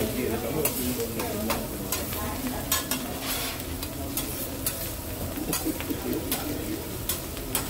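Food sizzling and frying on a hibachi (teppanyaki) griddle as it is stirred, with scattered sharp clicks of metal spatulas on the hot plate.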